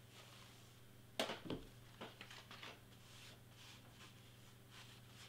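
A sharp knock about a second in as the small heat press is set down, followed by soft, scattered crinkling and rustling as the Teflon pressing sheet is lifted off the heat-transfer vinyl.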